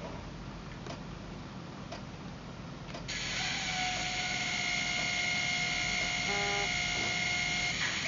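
Sound effects from the DCC sound decoder of a Piko DF7C model diesel locomotive, played through its small speaker: a few faint ticks about once a second, then, about three seconds in, a steady hiss with a high whining tone comes on and holds.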